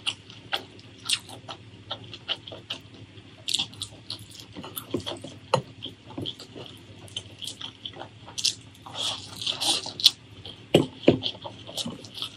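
Close-miked eating sounds: wet chewing with many short mouth clicks and smacks, then fingers mixing rice and beef curry on a plate, a squishy rustle about nine seconds in and two louder knocks soon after.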